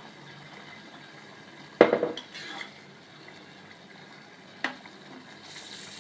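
Metal kitchenware clanking against a cooking pot: one loud clank about two seconds in with a brief rattle after it, then a single sharper knock near the five-second mark.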